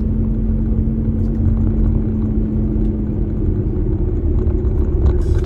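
Steady low rumble of a moving car's engine and tyres heard from inside the cabin, with a steady hum that gives way to a slightly higher one about four seconds in.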